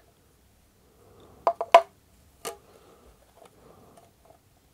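Hard plastic parts of a food chopper's base housing clicking and knocking as it is handled and opened: three sharp clicks in quick succession near the middle, the second the loudest, over faint rustling.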